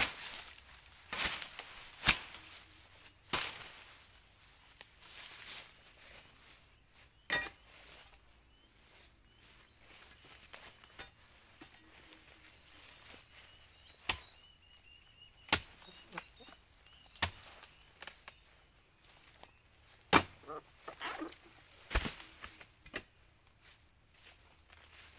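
Sharp chopping strikes, about a dozen at uneven intervals with a pause in the middle, as a harvesting blade cuts into an oil palm, over a steady high buzz of insects.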